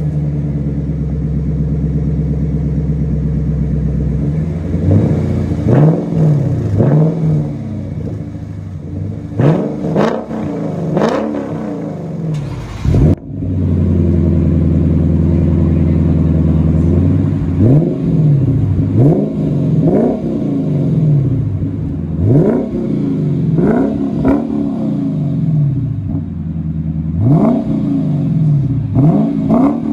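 2022 Lexus IS 500's V8 running through a Kinney's Street Demon custom exhaust: it idles steadily, then is blipped in quick free revs, each rising and falling sharply. About halfway through, a brief drop is followed by another steady idle and a longer run of revs.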